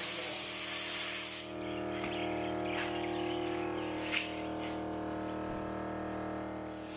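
Compressed-air paint spray gun hissing as it sprays. It stops after about a second and a half, gives two short blasts, and starts again just before the end. A steady hum runs underneath.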